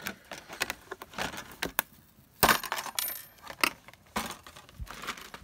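Metal craft die set in its card packaging being handled on a desk: a run of clicks and rustles. About two and a half seconds in there is a sharp metallic clink that rings briefly.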